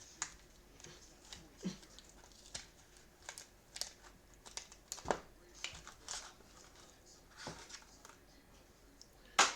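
Faint, scattered light clicks and crinkling of trading cards and hanger-box packaging being handled, with one sharper click near the end.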